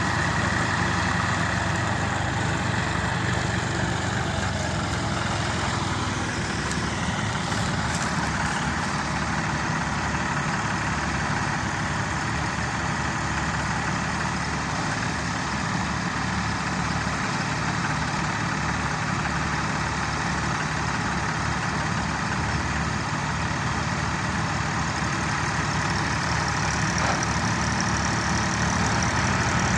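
Diesel engines of two farm tractors, a Massey Ferguson and a John Deere, running steadily at close range, with an even low chugging throughout.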